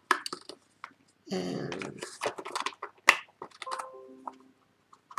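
Plastic packaging being handled: a crinkly rustle about a second and a half in, with scattered light clicks and taps around it.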